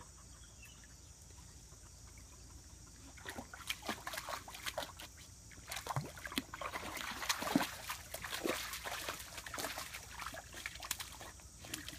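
Golden retriever puppy wading through a muddy puddle and pushing its nose into the water, making irregular splashing and sloshing sounds that start about three seconds in.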